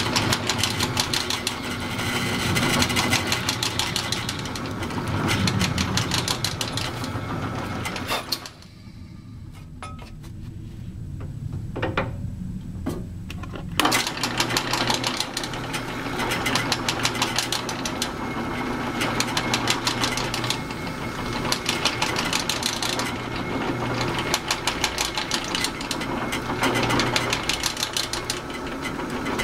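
Drill press running while drilling deep holes into a block, a steady motor hum with a fast chatter from the cut. About eight seconds in it shuts off and winds down, a couple of faint clicks follow, and around fourteen seconds in it starts up again and keeps drilling.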